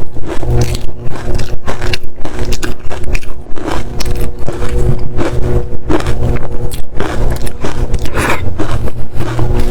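Close-up crunching of dry, frosty-textured ice as it is bitten and chewed, with many irregular crunches and cracks in quick succession. A steady low hum runs underneath.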